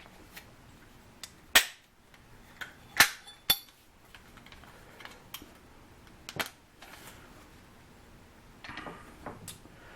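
AR-15 upper receiver being fitted onto its lower receiver by hand: a series of sharp metal clicks and clacks as the parts seat and the pins are pushed in, the loudest about one and a half, three and three and a half seconds in, the last of these with a brief metallic ring, with quieter handling rattles between.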